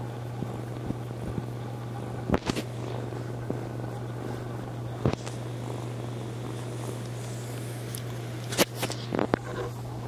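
Kitten purring steadily, close to the microphone. Sharp knocks and rustles of fur against the microphone come a few times, loudest in a cluster near the end.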